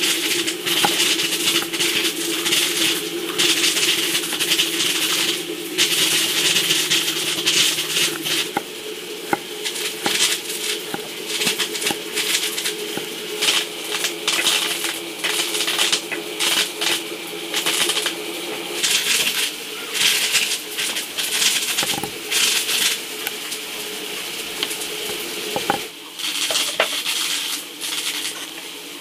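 Kitchen prep sounds: a knife tapping and cutting on a wooden chopping board, with clicks and clattering throughout. A steady low hum sits under it until about two-thirds of the way through.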